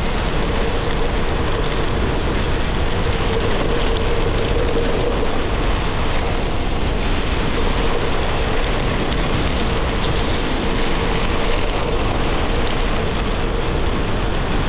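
Wind rushing over an action camera's microphone, mixed with the rumble of 38 mm Panaracer GravelKing SS tyres rolling over a dirt and gravel forest trail on a gravel bike: a steady, loud rush with a faint steady hum underneath.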